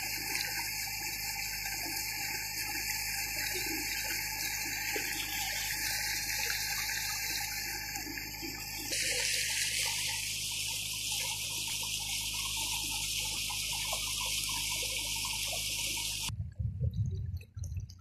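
Water rushing and splashing along the hull of a moving boat, a steady hiss with a steady low hum beneath it. The sound changes abruptly about halfway through, and near the end the rush stops, leaving uneven low bumps.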